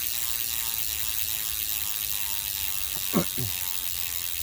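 Hope Pro 4 rear hub freewheeling as the wheel is spun and left to coast, its pawls making a steady high ratcheting buzz that slowly drops in pitch as the wheel slows. About three seconds in there is a short, sharp falling squeak.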